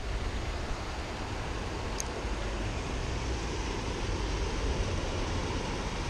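Steady rush of a fast-flowing, rain-swollen creek, with a low rumble of wind on the microphone. A single faint click about two seconds in.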